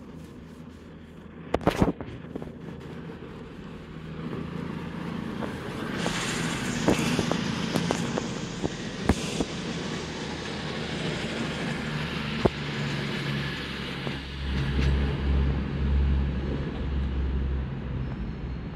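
CrossCountry Voyager diesel multiple unit running past at low speed: diesel engine drone and wheel noise building up, with sharp clicks as the wheels cross rail joints and points, and a deep engine rumble in the last few seconds. A sharp clatter stands out about two seconds in.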